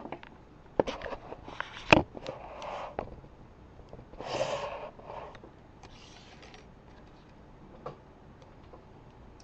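Small objects being handled on a work surface: a few sharp clicks and taps, one louder about two seconds in, with brief rustling and scraping. A short breathy noise comes about four seconds in.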